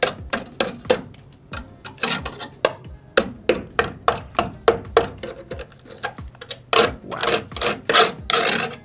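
A screwdriver scraping and prodding at the rust-rotten steel outer sill of a classic Mini, in quick irregular strokes about two a second, with longer scrapes near the end. The sill is badly rotted.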